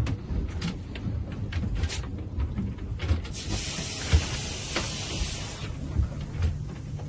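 Wind buffeting the microphone in a fluctuating low rumble, with scattered knocks and clicks and a steady hiss lasting about two seconds in the middle.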